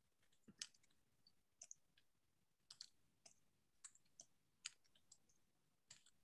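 Near silence broken by a dozen or so faint, irregularly spaced clicks.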